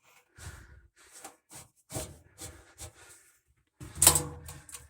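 Irregular handling noise: a series of short rustles and light knocks, with one louder thud about four seconds in.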